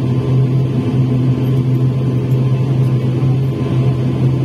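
ATR 72 turboprop engine and propeller heard from inside the cabin while taxiing: a steady low drone with a strong humming tone that holds at one pitch and level.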